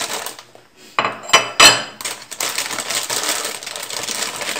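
A plate knocks and clinks down on a stone countertop, two or three sharp ringing knocks about a second in. Then a plastic bread bag rustles and crinkles steadily as slices are taken out.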